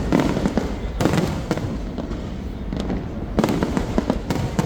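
Aerial fireworks bursting: a sharp bang at the start, another about a second in, and a cluster of bangs in the last second and a half, over a steady low rumble.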